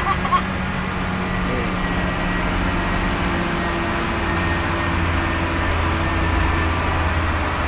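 A steady engine drone that does not change in level or pitch, with a faint steady whine above it.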